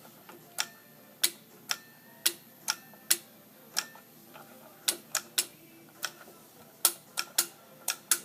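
Small toggle switches on a puzzle switch board being flipped one after another: about fifteen sharp clicks at uneven spacing.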